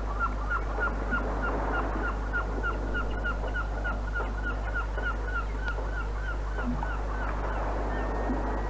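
A bird call repeated in a rapid run of short, identical chirps, about three a second, that stops near the end, where a faint steady high tone begins. A constant low mains hum from the old reel-to-reel tape runs underneath.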